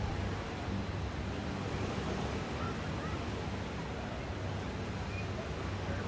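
Ocean surf washing onto the beach, a steady rushing noise with a low steady hum underneath.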